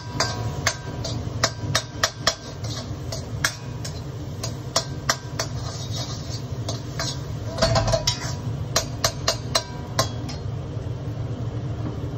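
Metal spatula scraping and clinking against a steel wok while stir-frying egg fried rice: irregular sharp clinks, several a second, thinning out near the end. A steady low hum runs underneath.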